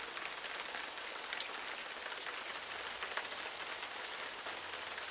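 Steady rain falling, an even hiss with many small drop ticks, after the music has stopped.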